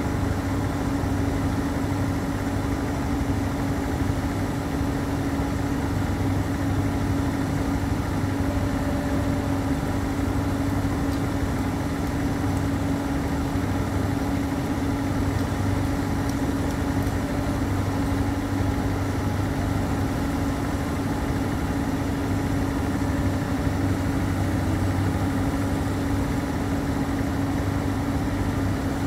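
Diesel engine and hydraulics of a Komatsu PC210 excavator running with a constant low drone as it pushes a steel sheet pile into the ground.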